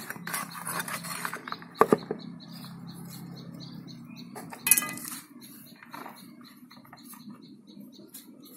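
A small metal trowel knocking and scraping against a plastic bucket and pot while fertiliser is scooped and tipped out, with sharp knocks about 2 seconds in and near 5 seconds in, the second with a brief metallic ring. A faint high chirp repeats about three times a second throughout.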